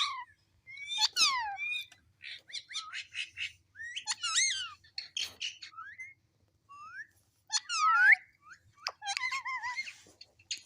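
Pet parrot whistling and chirping: a broken series of short chirps and rising and falling whistles, with a quick run of short notes early on and a loud falling whistle about eight seconds in.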